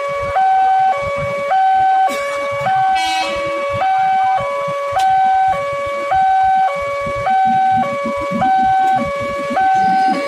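Railway level-crossing warning alarm sounding its two-tone electronic bell, a higher and a lower tone alternating evenly about every half second while the crossing lights flash for an approaching train. A low rumble grows underneath near the end as the KRL electric train nears.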